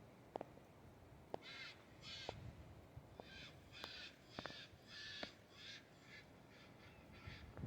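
Faint harsh cawing of a crow: about a dozen short caws in quick runs over near silence.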